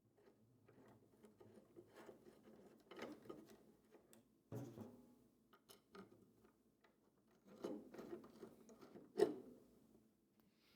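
Hand-fitting of landing gear hardware: faint clicks, taps and rustles of washers, M4 bolts and the gear being handled and slid into place, with a sharper knock about halfway through and another near the end.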